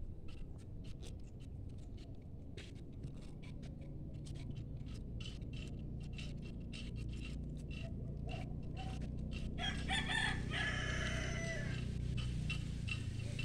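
A rooster crows once, about ten seconds in, for roughly two seconds. Through the rest there are quick, irregular ticking clicks over a steady low hum.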